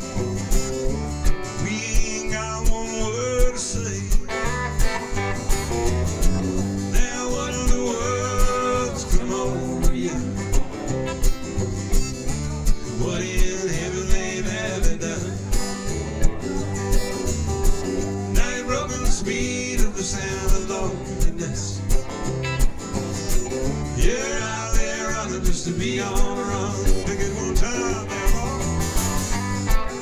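Country band playing an instrumental break: a lead guitar melody over strummed acoustic guitar and a bass line, with a steady beat.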